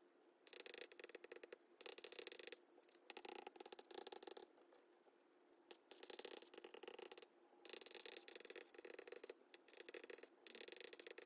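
Faint scratching of an Apple Pencil tip writing on an iPad screen, in strokes of a second or two with short pauses between them.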